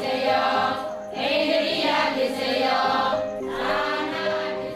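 Music with choir-like singing voices over steady held instrumental notes.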